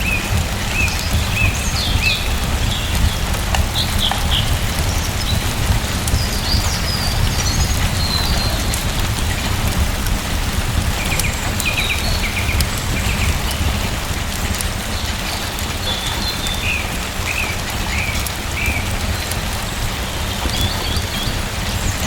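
Steady rain falling, with a low rumble underneath and faint sharp ticks of drops. Small birds chirp on and off throughout in short calls.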